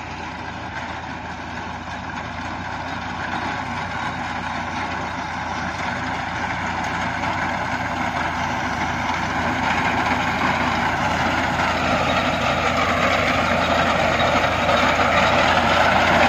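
Tractor engine running steadily as its front-mounted reaper cuts standing wheat, getting louder as the machine comes closer.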